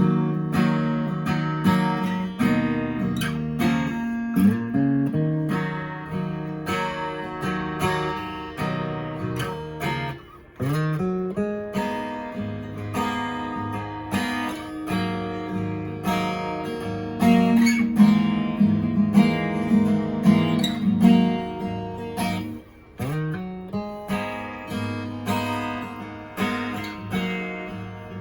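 Enya EA-X1 Pro/EQ acoustic guitar played unaccompanied: chords strummed and picked in a steady rhythm, each note ringing out, with short breaks about ten seconds in and again near the end.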